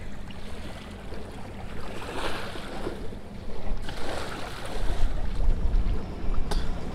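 Wind buffeting the microphone over small waves lapping at the shore, the low wind rumble growing louder about two-thirds of the way in. A single sharp click near the end.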